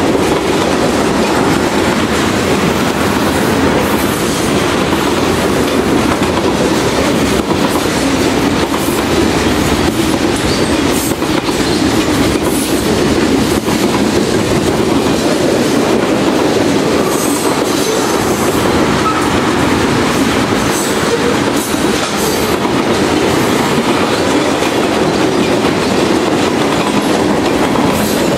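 Freight train cars rolling past close by, mostly tank cars: a loud, steady rumble of steel wheels on rail, with scattered clicks as the wheels run over the track.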